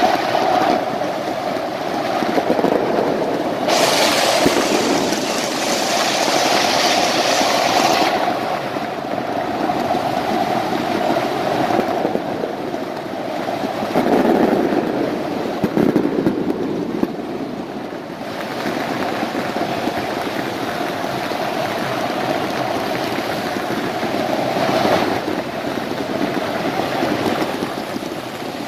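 Stadium pyrotechnics, with massed flares and spark fountains, make a continuous rushing hiss over the noise of a large crowd of football supporters. The hiss turns louder and sharper from about four to eight seconds in.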